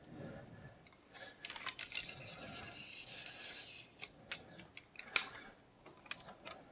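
Metal parts of a patio door's lock mechanism being worked loose and lowered: a rasping scrape of metal sliding against metal, then a few sharp clicks, the loudest about five seconds in.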